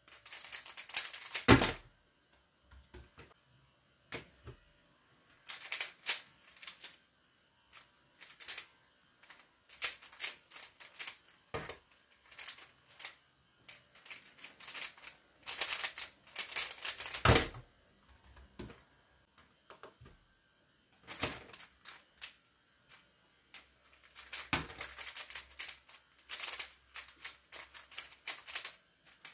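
A 3x3 speedcube being turned fast in the hands: rapid plastic clicking and clacking in bursts of a few seconds, with short pauses between and a few louder knocks.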